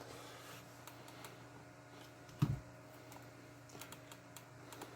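Faint scattered clicks and light handling noise of wires and small plastic parts being pushed into place in an RC truck chassis, with one soft thump about two and a half seconds in.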